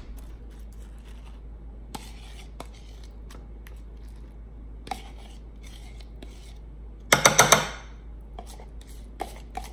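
Metal spoon scraping and clinking as blended tofu is scooped from a container and spread over a layer in a glass baking dish. Light scattered clicks, with a quick run of four or five loud clinks about seven seconds in.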